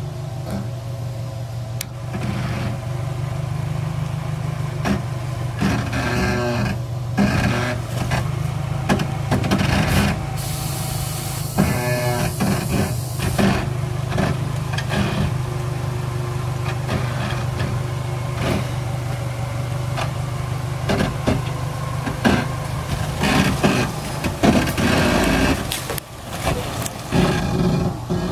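Mitsubishi L300 4x4 van's 2.4-litre 16-valve petrol engine running steadily at low revs while it crawls over sandstone rock ledges. Repeated knocks and scrapes come from the van on the rock, with a hiss for a few seconds around the middle.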